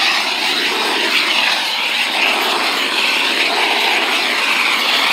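Blowlamp burning with a steady rushing hiss, its flame heating used motor oil on wooden boat boards until the oil bubbles and soaks into the wood.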